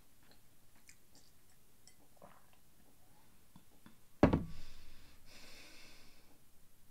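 A glass tumbler set down on a cloth-covered table with a single knock about four seconds in, the loudest sound here. Before it come a few faint gulps of water being swallowed, and after it a soft breath out.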